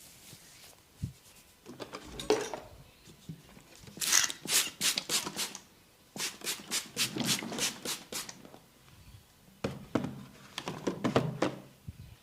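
Head massage: a barber's hands tapping and patting quickly on a head, in runs of about five sharp strokes a second, with pauses between the runs.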